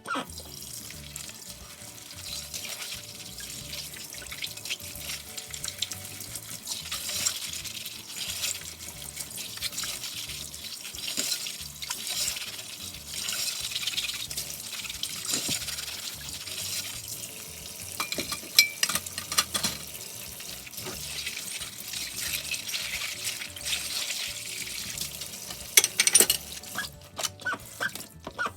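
Kitchen tap running into a sink while dishes are washed, the water rising and falling unevenly, with a few sharp clinks near the end.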